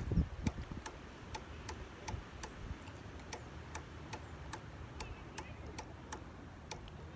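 Regular sharp ticking, about two and a half ticks a second, over a faint low rumble.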